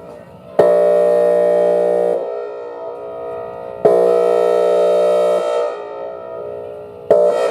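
Whelen Vortex R4 electronic warning siren sounding its air-horn tone in short blasts: two blasts of about a second and a half, and a third starting near the end. Each cuts in at full volume on one steady, buzzy pitch and leaves a short echo when it stops.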